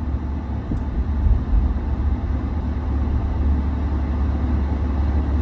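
Steady low rumble of a car with its engine running, heard from inside the cabin.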